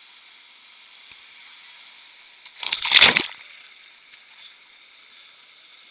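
Steady rush of river rapids, broken about halfway through by a loud burst of water splashing right at the camera that lasts under a second.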